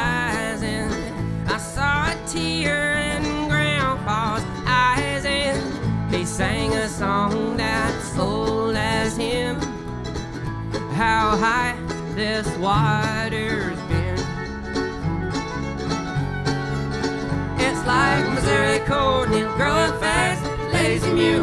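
A band playing a folk song live, with continuous music and no spoken words.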